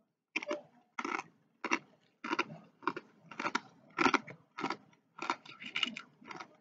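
A person chewing crunchy rolled tortilla chips (Kroger-brand Takis-style chips), a sharp crunch about twice a second.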